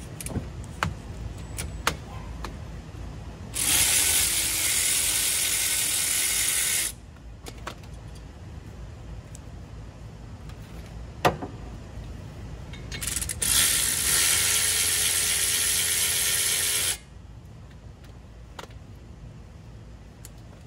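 A cordless impact wrench runs in two bursts of about three seconds each, with scattered metal clicks and one sharp knock from the brake parts between the bursts.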